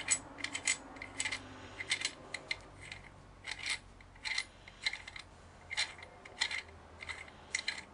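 Metal parts of a microphone and its mount being worked loose by hand: a string of light, irregular metallic clicks and clinks, about two a second.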